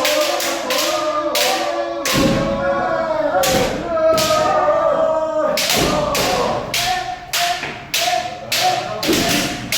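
Kendo practice: bamboo shinai cracking against armour in a steady run of strikes about two a second, with a few heavy stamping thuds, under the drawn-out kiai shouts of several practitioners.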